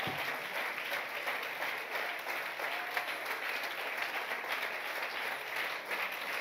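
Congregation applauding, a steady, even clapping that holds throughout.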